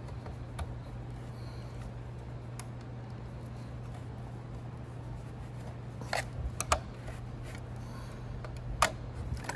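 A few sharp clicks from pliers squeezing and seating a plastic power-cord strain-relief bushing into the sheet-metal housing of a fireplace blower, over a steady low hum. The clicks come about six seconds in, again shortly after, and once more near the end.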